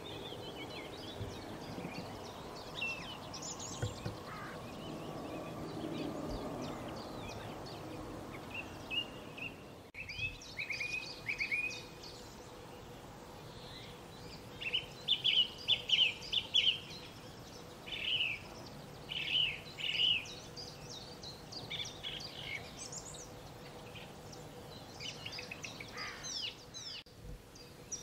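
Several songbirds singing and calling in short, repeated high phrases, loudest about halfway through, over a steady low background rumble that is strongest in the first few seconds.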